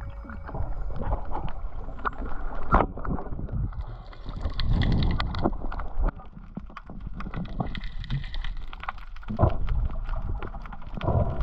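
Water sound picked up by a camera underwater: a muffled rush and slosh of water with scattered knocks and clicks, and two spells of higher hiss about five and eight seconds in.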